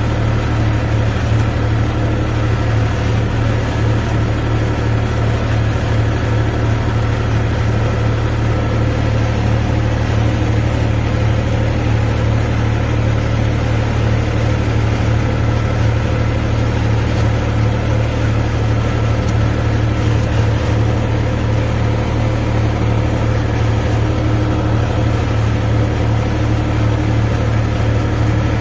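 Tractor engine running at a steady, even speed, with a strong low hum.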